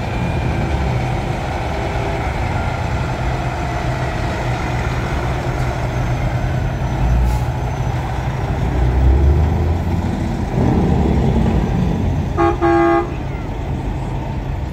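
Big diesel trucks rumbling steadily as they roll past in a convoy, the sound swelling as one goes by. Near the end a truck horn gives two short blasts in quick succession.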